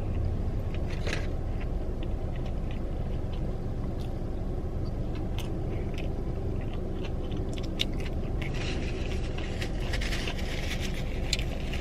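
Chewing and biting into a crispy fried chicken sandwich, small crunches and clicks, with denser crackling and scraping from about eight to eleven seconds in. A steady low rumble runs underneath.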